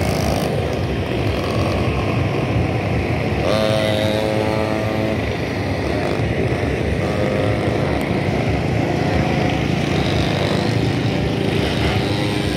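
Small engines of mini ATVs and mini dirt bikes running in a steady drone. A nearer engine's pitched buzz stands out for about a second and a half, about a third of the way in, and fainter ones come and go later.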